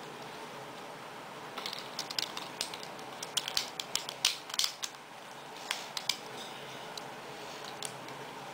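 Plastic clicks and snaps from the joints and panels of a Transformers Megatron toy figure being twisted and pushed into place by hand during transformation. There is a quick run of sharp clicks from about a second and a half in to about five seconds, then a few more near six seconds.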